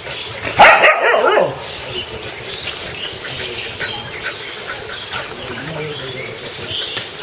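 A dog barks in play, one loud, rough burst lasting about a second that starts about half a second in, followed by quieter scuffling and a few short high bird chirps.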